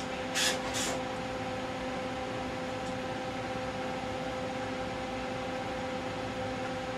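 Two brief scraping clicks about half a second in as cables are reconnected between the circuit boards, over a steady hum with a few held tones.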